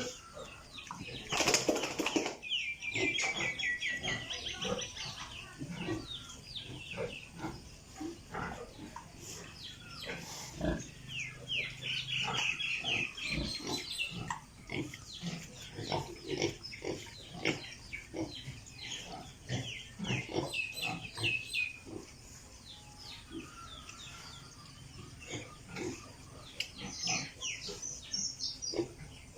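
Piglets grunting and squealing, with runs of high, rapidly repeated squeals about two, eleven and twenty seconds in.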